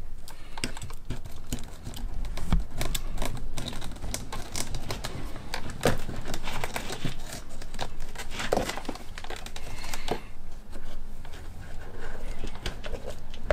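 Scissors snipping and cutting through felt insulation around a wire bundle, with hands working around the plastic trim: a run of irregular clicks.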